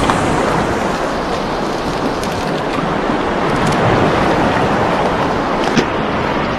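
Steady rushing noise of wind and open sea, with a few faint clicks, the sharpest near the end.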